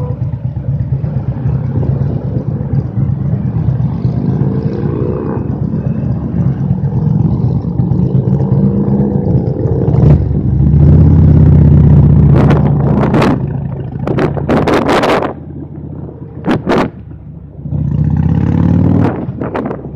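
Motorcycle engine running under way, rising in pitch several times as it accelerates through the gears, loudest about ten seconds in and easing off briefly near three-quarters of the way through. Gusts of wind hit the microphone in the second half.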